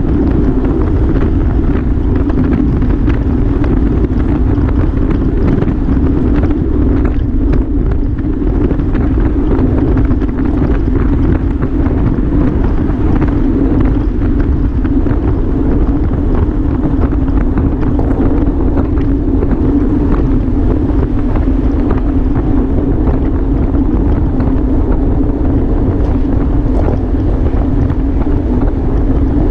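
Wind rushing over a camera microphone carried on a bicycle at racing speed: a loud, steady rumble with an even hum underneath.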